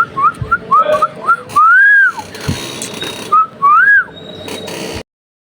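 A parrot whistling: a quick run of short rising-and-falling whistles, then two longer arched whistles. The sound cuts off suddenly near the end.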